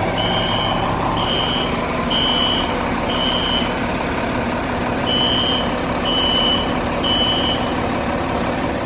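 Apartment building fire alarm sounding: a high-pitched beep repeating about once a second over a loud, steady buzzing drone. It is a false alarm, set off by someone tampering with the alarm system.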